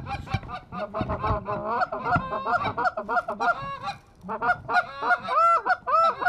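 Canada geese honking and clucking, many short calls overlapping in a quick series, with a brief lull about four seconds in and louder honks after it.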